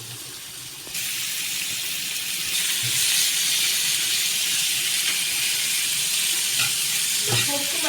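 Masala-marinated prawns sizzling in hot oil on a tawa. The sizzle starts abruptly about a second in as they go into the oil, then grows louder and holds steady.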